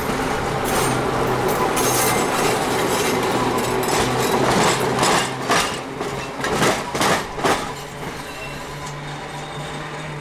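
Tampa TECO Line streetcar rolling across a railroad diamond, its wheels knocking over the crossing's rail gaps in a run of sharp clacks over a steady running noise.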